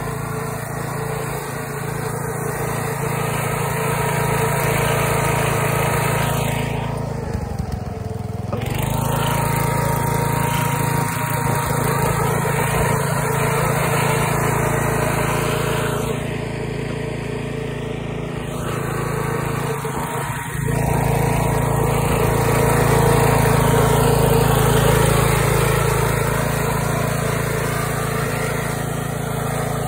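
Small engine of a stripped-down Ariens riding mower running hard as it is driven over rough ground, its level rising and falling, with two brief dips about a quarter and about halfway through.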